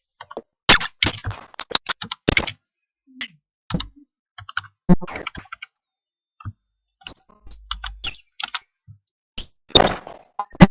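Irregular sharp clicks and knocks in a recorded Viber voice call, some with brief tonal chirps, cutting to dead silence between them. They resemble computer keyboard keystrokes.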